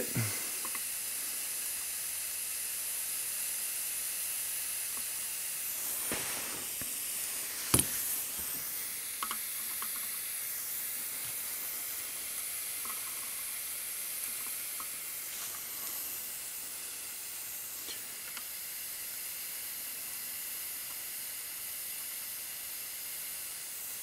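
Steady high hiss of a butane soldering iron's flame while relay pins are soldered on a circuit board, with a sharp click about eight seconds in.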